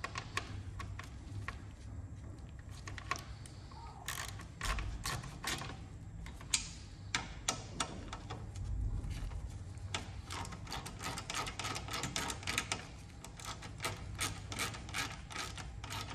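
Hand ratchet clicking in quick runs as the mounting bolts of a new air-conditioning condenser are wound in, with a few dull knocks along the way.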